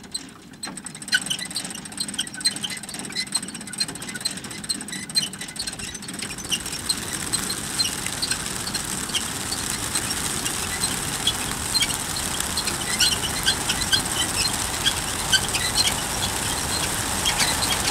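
A large flock of young racing pigeons bursting out of a transport truck's crates: a mass of wings flapping and clattering, with many sharp wing claps. It swells over the first few seconds, then holds steady and loud.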